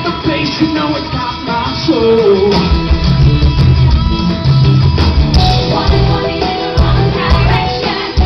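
Loud live stage-show music with singing over a heavy bass line.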